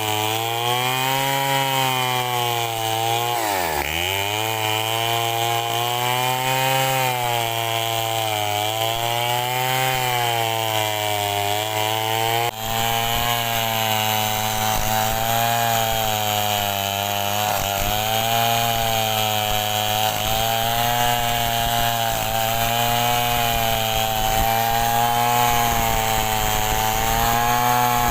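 Stihl 070-based two-stroke chainsaw cutting mahogany lengthwise under load, its engine pitch repeatedly sagging and picking up again as the chain bites, with a deep bog about four seconds in before it recovers.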